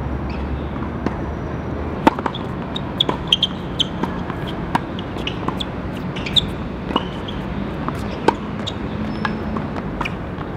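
Tennis rally: a series of sharp pops of the ball being struck and bouncing, spaced roughly half a second to a second apart from about two seconds in, over a steady background hum.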